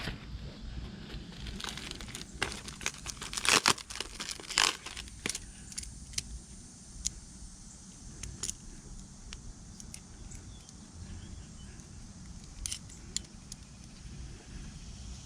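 Packaging wrap being pulled at and torn open by hand, crinkling and crackling, busiest in the first few seconds and then in sparser crackles.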